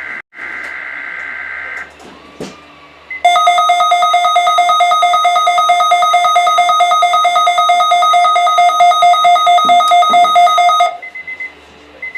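Weatheradio Canada alert signal for a required weekly test: buzzing digital header tones that end about two seconds in, then a loud, rapidly pulsing alert tone for about seven and a half seconds that cuts off sharply.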